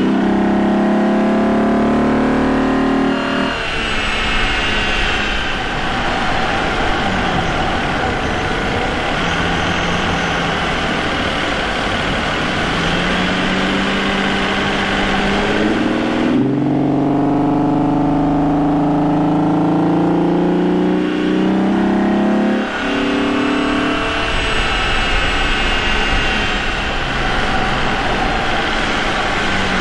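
Vauxhall Omega's 3.2-litre 24-valve Y32SE V6 running under way, heard close to its K&N air intake, with a custom exhaust. The engine note climbs and falls several times, with sudden steps in pitch a few seconds in, about halfway through and again later.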